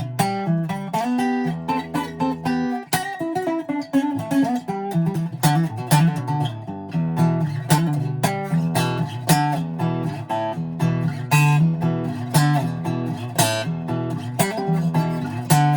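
Greco D-70 steel-string acoustic guitar being played: a continuous run of plucked notes and chords over ringing bass notes.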